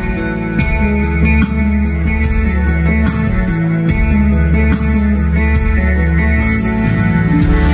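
Live band playing an instrumental passage of a soft-rock song: electric guitar and keyboard chords held over a steady beat of high cymbal taps.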